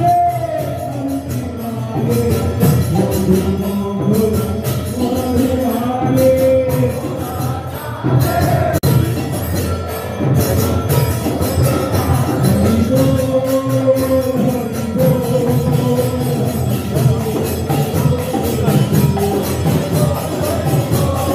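Devotional kirtan at an ISKCON arati: voices singing a chant in long, held notes over steady jingling metal percussion.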